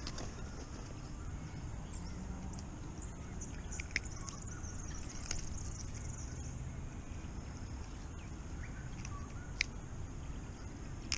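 A few sharp clicks as a cicada surface lure's hooks are worked out of a bass's mouth, over a steady low rumble, with faint bird calls in the background.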